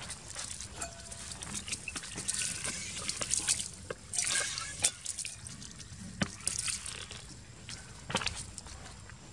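Water splashing in irregular spurts onto muddy ground and a ceramic plate, with scattered drips and small clicks between the spurts.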